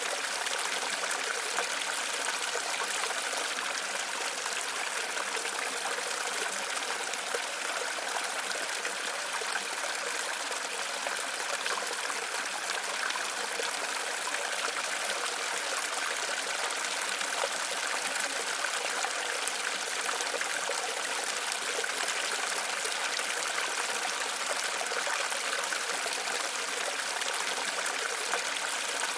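Waterfall: a steady, unbroken rush of falling and running water, bright and hissy with little low rumble.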